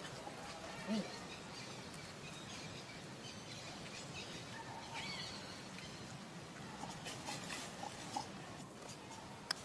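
Quiet outdoor background with a few faint short calls: a brief squeak about a second in and a high gliding chirp about halfway through. Scattered light clicks come near the end, one of them sharp.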